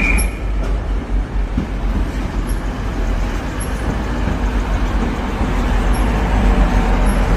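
Steady low rumble and running noise of a moving train.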